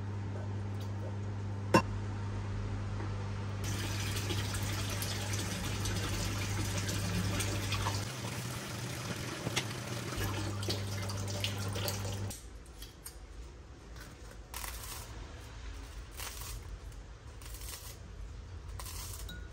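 A steady low hum with a hiss like running water joining it about four seconds in; both stop abruptly about twelve seconds in, leaving faint clicks and clatter.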